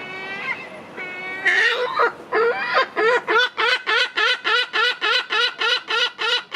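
Lesser black-backed gull giving its long call: a few whiny, falling mew notes, then a loud run of short, rapid calls at about three to four a second.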